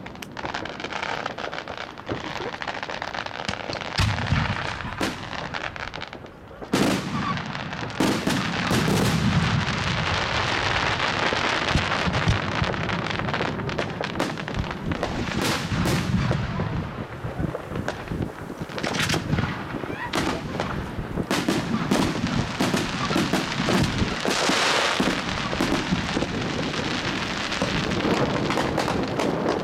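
Fireworks going off: single sharp bangs in the first seconds, then a dense, near-continuous crackle of many small reports from about eight seconds in, as crackling stars burst.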